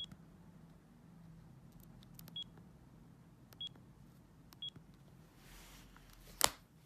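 Bird S1150 mobile phone giving four short, high key-press beeps with uneven gaps, with faint clicks between them. Near the end comes a brief rustle, then one sharp click, the loudest sound here.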